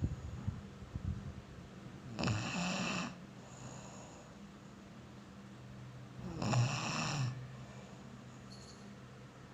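A sleeping person snoring: two loud snores about four seconds apart, each just under a second long.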